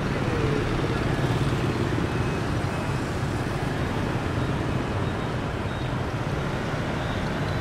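Busy street traffic dominated by motor scooters and motorbikes passing close by, a steady drone of many small engines.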